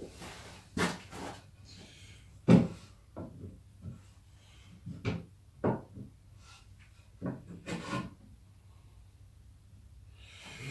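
Pine boards shifted and set down on a wooden box, giving an irregular series of light wooden knocks and sliding rubs, the loudest about two and a half seconds in. This is the top board being lined up over dowel centre points in pre-drilled holes.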